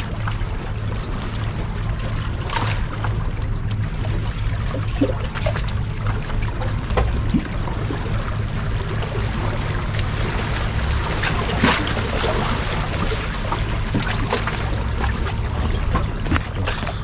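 Sea water lapping and trickling over a steady low rumble, with a few short clicks now and then.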